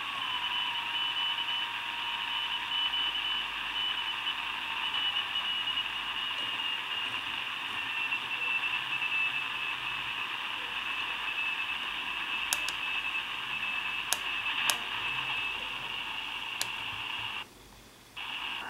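Audio of a homebrew DDS-controlled 40 m SSB receiver tuned in LSB near the Morse (CW) end of the band. It gives steady band hiss with a thin high whistle that keeps breaking up, typical of a CW signal, plus a lower tone that slides down in the first second as the dial turns, and a few sharp static clicks. The audio cuts out briefly near the end as the receiver's operating mode is switched.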